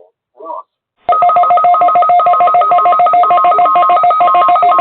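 Weather radio alert data tones: a loud, rapid, buzzy warble of electronic pitches switching back and forth many times a second, starting abruptly about a second in. It is the coded test signal that switches on weather alert receivers.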